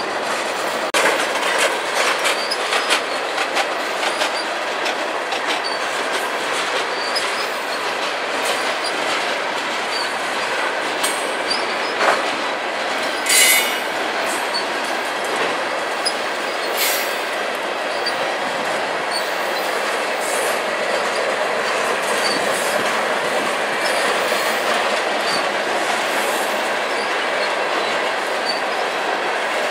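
Freight train cars rolling slowly past, a steady rumble and rattle of steel wheels on rail. There is a run of clicks over the rail joints in the first few seconds, and two short high wheel squeals around the middle.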